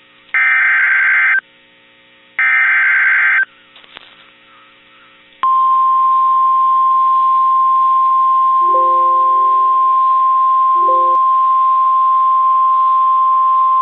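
NOAA Weather Radio alert signalling: two one-second bursts of SAME digital header data, a second apart. About five and a half seconds in, the steady 1050 Hz warning alarm tone starts and holds, marking the start of a new severe thunderstorm warning.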